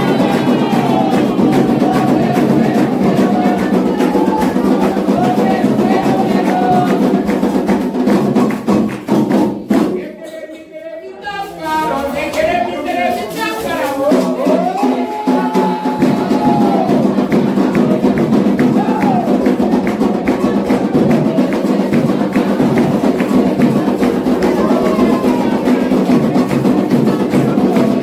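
Candomblé ritual music: atabaque hand drums and a bell beating a steady rhythm under a sung chant, with hand clapping. About ten seconds in the drums stop and a single voice sings a new chant, and the drums and singing come back in about six seconds later.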